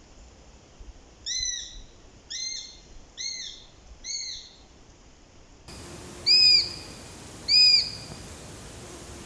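Eurasian sparrowhawk calling: four short, arched, nasal call notes about a second apart, then two louder ones a little over a second apart near the end.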